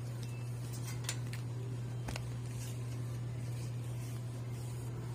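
Clothes hangers clicking against a metal clothing rack as garments are pushed along it: a few sharp clicks, the clearest about one and two seconds in, over a steady low hum.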